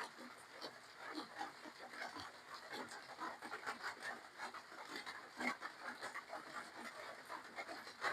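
A person eating close to the microphone: wet chewing and mouth smacking of spicy seafood papaya salad with rice noodles, a stream of small irregular clicks with a louder one about halfway through.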